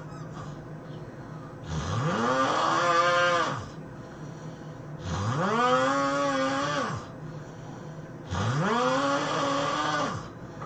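A person snoring heavily: three long, loud snores about three seconds apart, each rising in pitch as it starts, then holding a steady tone before dropping away.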